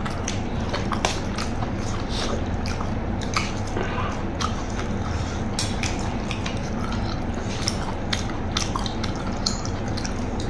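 Close-up eating sounds: a mouthful of rice and stir-fry being chewed, with short irregular clicks of a metal spoon and fork on a metal tray, over a steady low hum.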